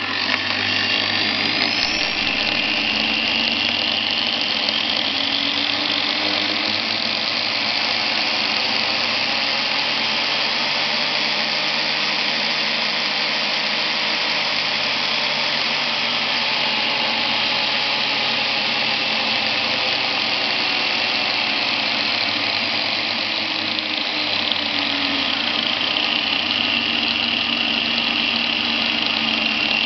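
Angle grinder running with no load, its disc spinning free, powered through an electronic speed regulator; its whine slowly drops in pitch and rises again as the speed is turned down and up.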